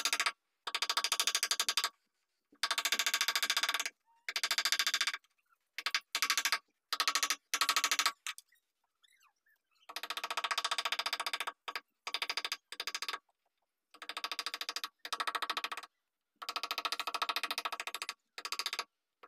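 Wooden mallet rapidly tapping a carving chisel into a wooden panel, in quick runs of strikes about a second long separated by short pauses, with a longer pause about halfway through.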